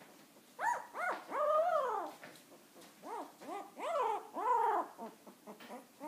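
Husky puppy whining in short pitched calls, each rising and then falling in pitch: three in the first two seconds, then four more in quick succession from about three seconds in.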